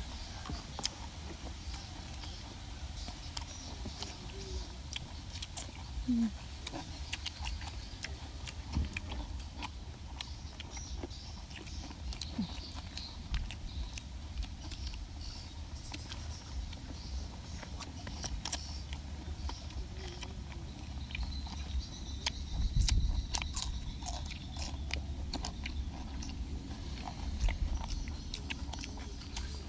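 People biting and chewing crisp shredded green papaya salad and raw vegetables, a scatter of short crunches and clicks over a steady low rumble.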